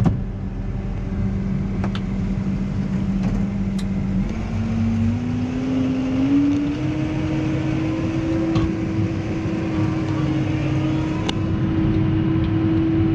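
New Holland T6.180's six-cylinder diesel engine running under load while spreading slurry, heard from inside the tractor cab. Its steady note rises smoothly in pitch about four seconds in and holds at the higher pitch.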